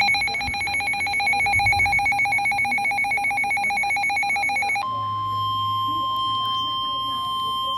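Emergency Alert System attention tones: a fast-trilling electronic ring for about five seconds, then a steady single-pitched alarm tone like the 1050 Hz weather radio warning tone that introduces a new severe thunderstorm warning.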